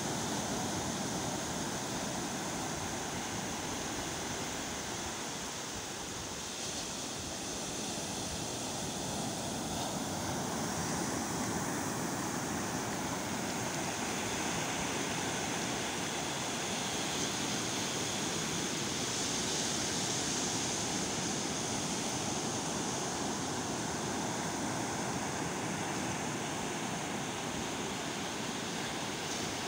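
Sea surf washing up a sandy beach: a steady rush of breaking waves that eases a little about six seconds in and swells again after.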